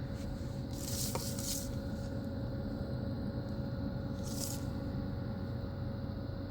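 Steady low room hum with a faint constant tone, and two brief soft hisses, about a second in and again near four and a half seconds.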